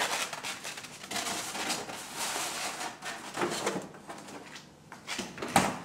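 Kitchen handling noises during cooking prep: rustling and light clatter, with one sharp click near the end.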